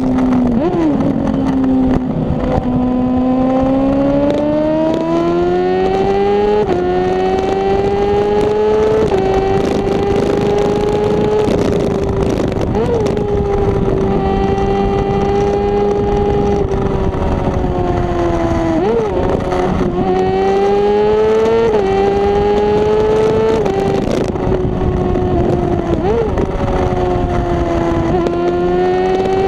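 Honda CBR600RR inline-four sport-bike engine through a Two Brothers aftermarket exhaust, ridden along a road. The engine note climbs and falls with the throttle and steps sharply several times as gears change.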